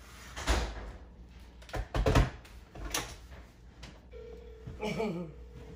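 Kitchen handling sounds: a few separate knocks and clunks, the loudest about two seconds in, with a faint steady tone near the end.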